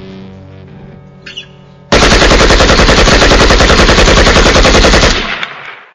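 Last guitar chord of a song fading out, then, about two seconds in, a sudden long burst of machine-gun fire, rapid shots for about three seconds, very loud, dying away near the end.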